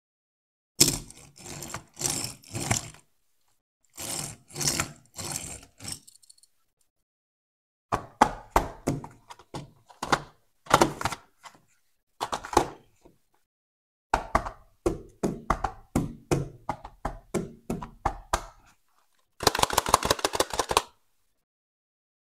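Handling noises from a small die-cast toy vehicle and its cardboard packaging: knocks, taps and scrapes come in short bursts with silent gaps between them. Near the end there is a quick, even run of clicks.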